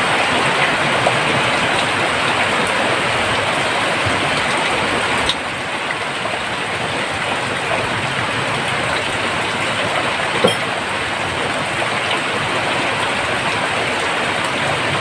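Heavy rain pouring down in a steady, dense hiss, easing slightly about five seconds in.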